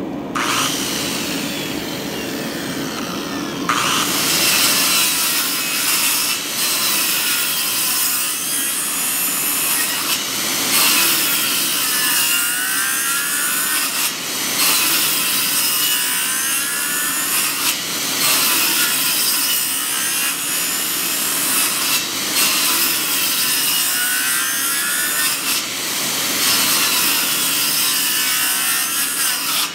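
Circular saw running and cutting into a timber beam, pass after pass, making a row of closely spaced shallow kerfs. The blade's pitch sags as it bites into the wood on each pass.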